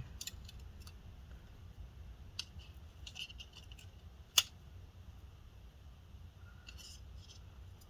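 Faint scattered clicks and scratches as small rubber pieces are peeled off a laptop's fan and heatsink assembly by hand, with one sharper click about four seconds in.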